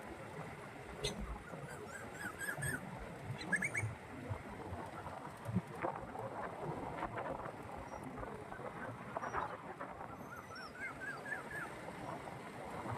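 Outdoor ambience: a steady hiss with two short runs of quick chirping calls, about two seconds in and again near eleven seconds, and a few scattered clicks.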